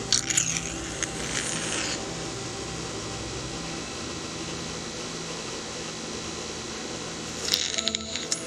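Electric microneedling pen running with a steady low hum as its needle cartridge is worked over facial skin. Short bursts of scratchy rubbing noise come in the first two seconds and again near the end.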